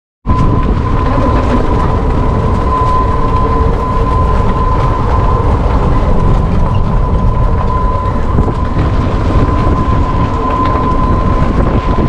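Open-sided electric cart driving along a road: a steady high motor whine over low, rumbling tyre and wind noise.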